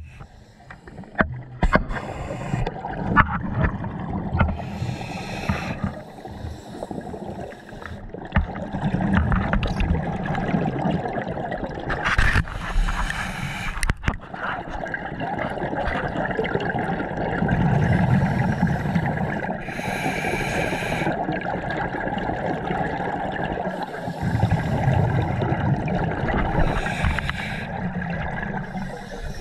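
Scuba diver breathing through a regulator underwater: a short hiss on each inhale, then a longer gurgling rush of exhaust bubbles, about four breaths, one every seven to eight seconds. A few clicks and knocks in the first few seconds.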